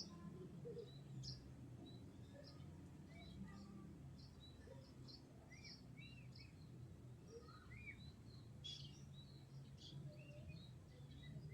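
Faint, frequent chirps and short calls of small birds over a steady low rumble.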